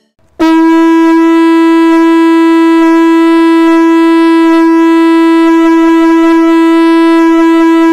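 A conch shell trumpet blown: one long, steady note that starts about half a second in and holds without wavering.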